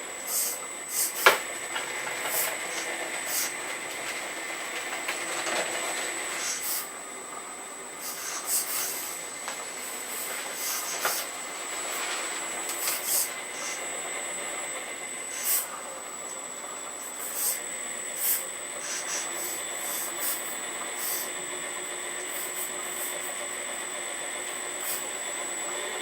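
Earth Digger 4200XL RC hydraulic excavator at work: a steady high-pitched whine from its hydraulic pump, broken by short clicks and knocks as the arm and bucket move soil, the sharpest knock about a second in.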